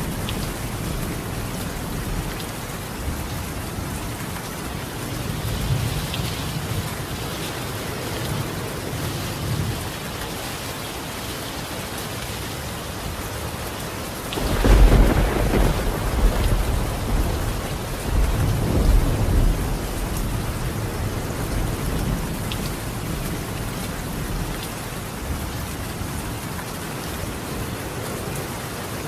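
Steady rain falling on a tiled roof. About halfway through, a loud thunderclap breaks out and rumbles on for several seconds in two swells before the rain carries on alone.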